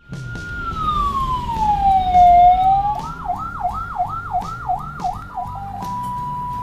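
Electronic ambulance siren running through its modes. A steady tone slides into one slow falling-and-rising wail, then switches to a fast yelp of about seven quick sweeps, and settles on a steady single tone near the end.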